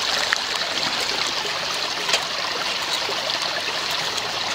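Creek water running steadily, with a short crackle of aluminium foil being folded by hand about two seconds in.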